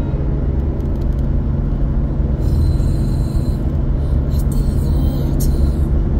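Steady low road and engine rumble heard from inside a car cruising on a highway. A brighter hiss joins about two and a half seconds in.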